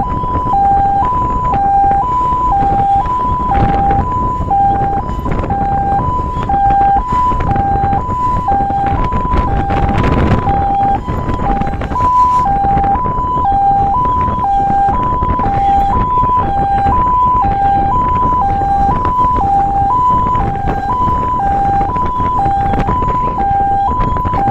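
Fire engine's two-tone hi-lo siren sounding continuously, switching between a high and a low tone about once a second each way. Road and wind rumble from the moving truck run underneath.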